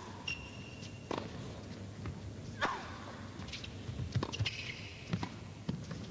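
Tennis rally on an indoor court: sharp racket-on-ball strikes and bounces every second or so, quicker near the end, with a few short squeaks of shoes on the court surface.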